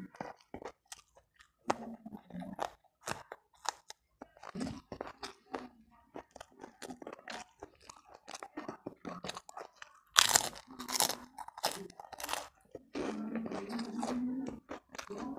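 Close-miked chewing and crunching of crispy fried food, a run of sharp crackling bites with the loudest burst of crunches about ten seconds in. A low hum joins in near the end.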